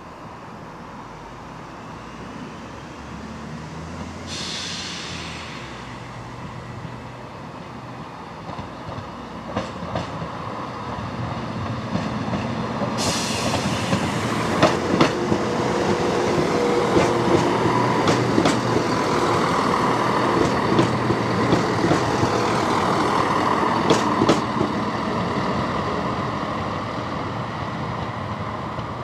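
A train on the move, its rumble growing louder to a peak and then easing off, with many sharp clicks of wheels over rail joints while it is loudest.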